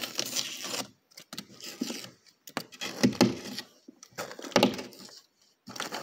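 Fingers tearing and picking at the paper face of thin sheetrock and the brittle, dried-out papery nest behind it: irregular dry crackling, scratching and tearing, in several short bursts.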